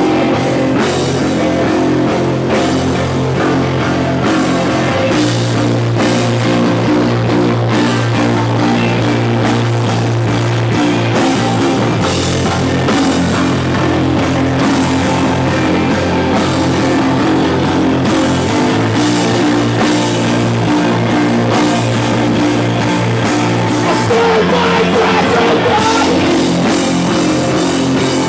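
Live rock band playing loud, with electric guitar and drum kit over held low bass notes that change every few seconds.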